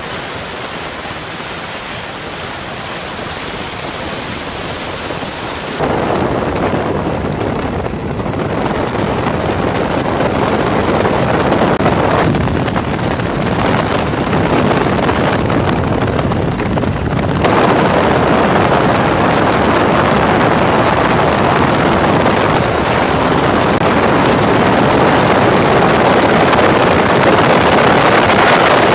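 Helicopter in flight heard from on board: a steady rushing noise of rotor and wind that jumps louder about six seconds in.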